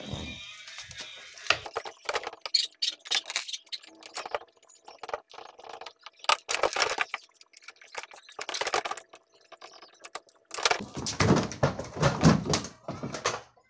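Irregular clattering and knocking of plastic and metal parts as a spin dryer's housing is handled, with a denser, heavier run of knocks and scraping about ten seconds in.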